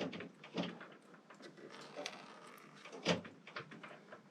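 Light clicks and knocks from handling brake-bleeding parts and a fluid container while topping up brake fluid, the sharpest knock about three seconds in.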